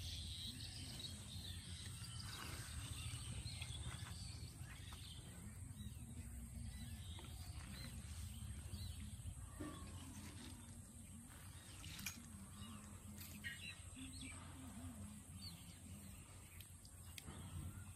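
Quiet outdoor ambience beside a village canal: a steady low rumble with scattered faint bird chirps and a thin, steady high-pitched tone.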